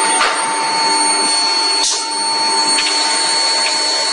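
Steady machine noise of an automated forging line with an electric screw press running, with a steady high whine and a few short knocks.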